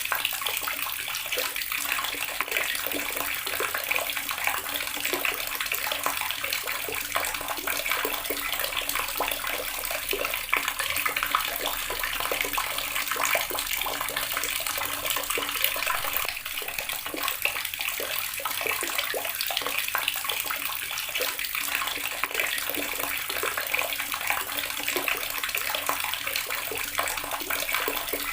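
Water tap running steadily, the stream splashing and spattering into a basin or tub.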